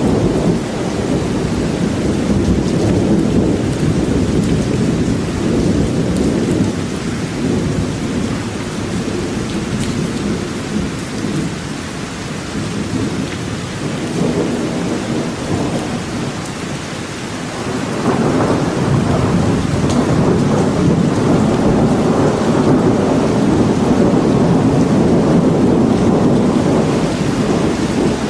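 Steady rain falling in a forest, over a deep, continuous rumble that eases off in the middle and swells back up about eighteen seconds in.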